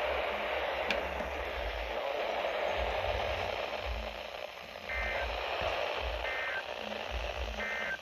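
Midland weather alert radio's speaker hissing with NOAA Weather Radio static. About five seconds in come three short warbling digital data bursts, roughly a second and a half apart: the SAME end-of-message code that closes the special marine warning broadcast.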